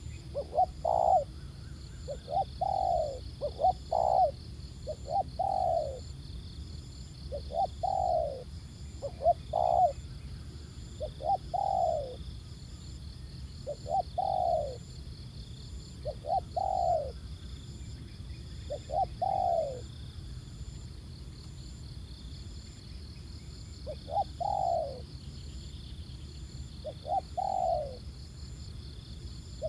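Spotted doves cooing: short coos, each falling in pitch, given singly and in pairs every second or two, with a pause of a few seconds near the end.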